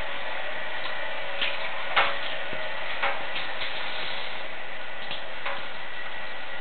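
Steady rushing hiss of running water, as of a bath tap filling a rubber blob toy, with a handful of light clicks through it.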